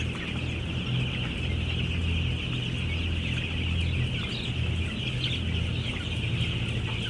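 A large flock of young broiler chickens, about ten days old, peeping and chirping all at once in a continuous dense chatter over a steady low hum.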